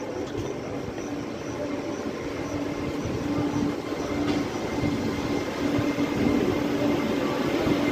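Trenitalia ETR 104 electric multiple unit running slowly into the station, growing louder as it approaches, with a steady hum over the running noise.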